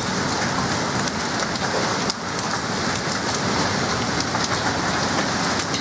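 Heavy storm rain pouring steadily, with scattered sharp ticks of drops striking hard surfaces.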